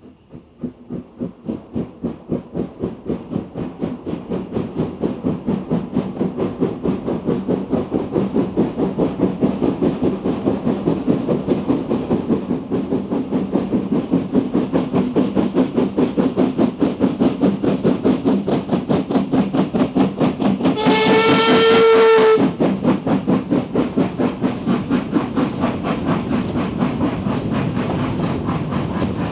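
Steam tank locomotive hauling a coal train, its exhaust beats quick and even, growing louder as it approaches. About two-thirds of the way through it gives one whistle blast of about a second and a half, and the chuffing carries on as the wagons roll past.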